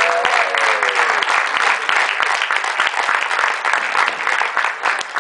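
Crowd applauding steadily for a trophy presentation, thinning out near the end. A long held note that falls slightly sounds over the clapping and stops about a second in.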